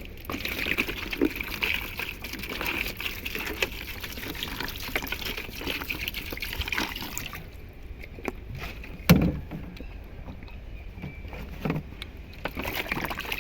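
Water being poured and splashing into a container for a caught fish for about seven seconds, then a few knocks, the loudest a heavy thump about nine seconds in.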